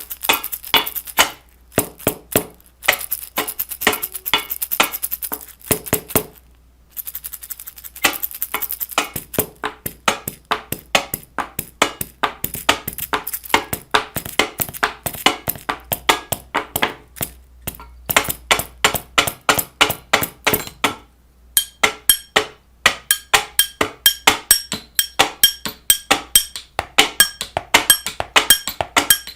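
A rapid series of sharp clicks and knocks, several a second, with a few short pauses.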